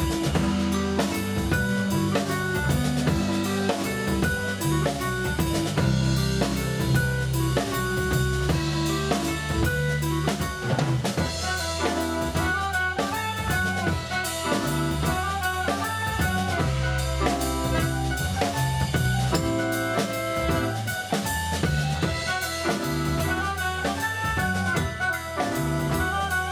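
Live band playing an instrumental dance tune: soprano saxophone and clarinet carry the melody over electric bass guitar, a drum kit and keyboard, with a steady beat.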